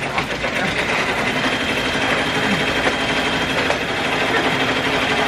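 Brother multi-needle embroidery machine stitching steadily, a fast even needle clatter with a constant whirring hum.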